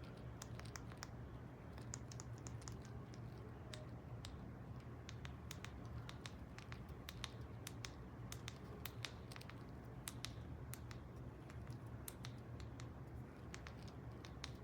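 Irregular light clicks in quick clusters, typing on a computer keyboard, over a steady low hum.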